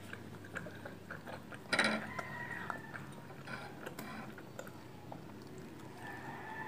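Small crunches of a crisp biscuit being nibbled and crinkles of its plastic wrapper, with one louder rustle about two seconds in.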